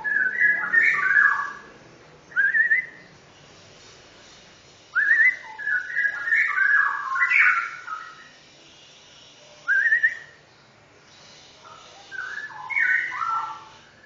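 Caged songbird singing in five bursts of clear whistled notes. There are longer jumbled phrases at the start, in the middle and near the end, and two short quick upslurred whistles between them.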